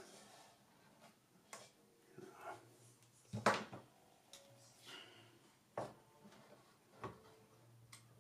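Small plastic one-handed bar clamps being handled and set onto the thin wooden strips of a model ship hull: a few scattered light clicks and knocks, the loudest about three and a half seconds in.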